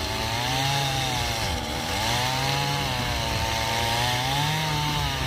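Two-stroke chainsaw running under load, its engine pitch sagging and rising again several times as it cuts through wood.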